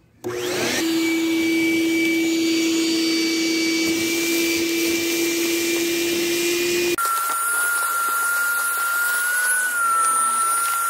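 Shop vacuum switched on and spinning up, then running with a steady whine as it sucks dirt through a 1.5-inch PVC pipe taped onto its hose. About seven seconds in, its tone shifts abruptly and the low rumble drops away.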